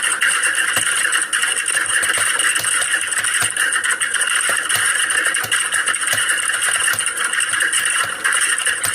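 Computer keyboard typing: a fast, unbroken clatter of keystrokes.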